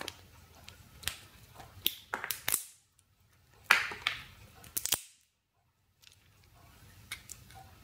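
Sharp snaps and cracks of a small black plastic component case and its hard potting compound being broken apart with pliers. They come in short clusters: about a second in, around two to two and a half seconds, near four and five seconds, and once near seven seconds.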